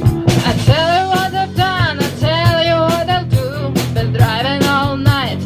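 Woman singing into a microphone with a wavering, sustained voice over a rock backing of a steady drum beat, bass and guitar.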